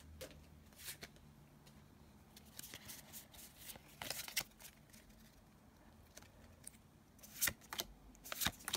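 Faint handling of a stack of Pokémon trading cards: scattered soft ticks and slides of card against card as they are flipped through, with a cluster of louder card snaps near the end.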